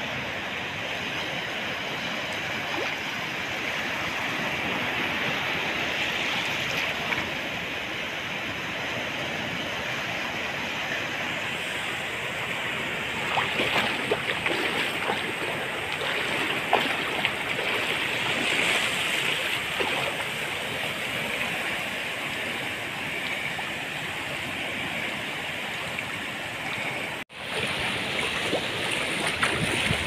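Sea waves breaking and washing up on a beach: a continuous rush of surf that swells louder with crackling, frothy peaks in the middle. The sound cuts out for an instant near the end.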